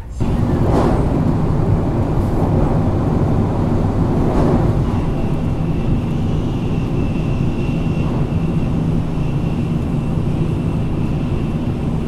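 Cabin noise inside a Tokaido Shinkansen Nozomi car running at speed: a steady rumble with a low hum. A thin high whine joins about five seconds in.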